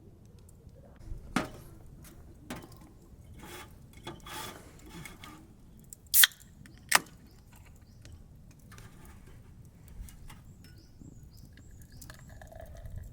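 Scattered light clicks and knocks of objects being handled, with two sharp, loud clicks about a second apart a little past the middle.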